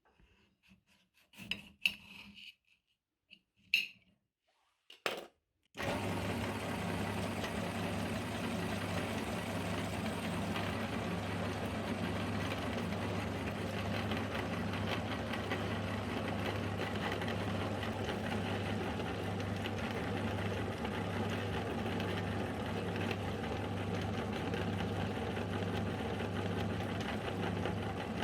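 A few light clinks and rubs of handling. Then about six seconds in, an electric meat grinder's motor switches on and runs steadily with a low even hum.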